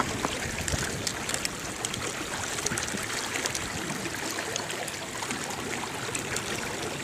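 Water lapping against the hull of a small fishing boat: an even wash of water sound dotted with many small ticks and splashes.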